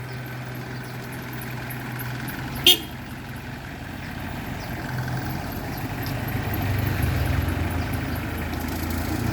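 Car engine running nearby, growing louder over the second half, with one short, sharp toot about two and a half seconds in.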